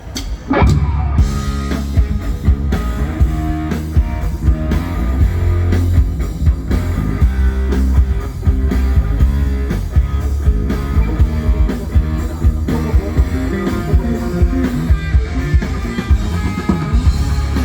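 Live rock band playing a song at a sound check: drum kit, bass and electric guitar with keyboards, starting together just after the start with a steady beat.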